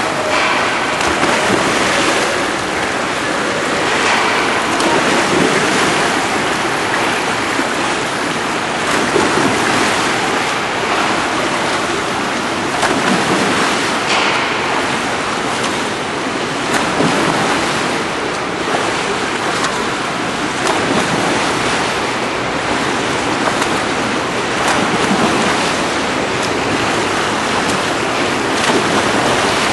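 Steady rushing noise of pool water and splashing, swelling now and then as a swimmer dives backward into the water and surfaces.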